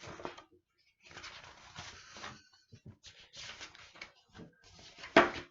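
Rustling and handling noises from a picture book being opened and its pages turned, in short irregular bursts. A brief loud vocal sound comes near the end.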